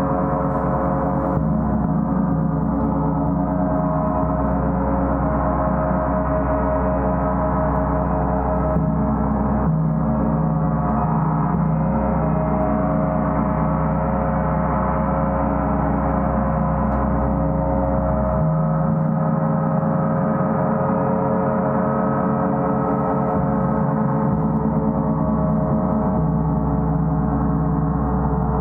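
A gong played as an unbroken wash of many held, overlapping tones at an even loudness. The deepest rumble drops away for a few seconds a little past halfway.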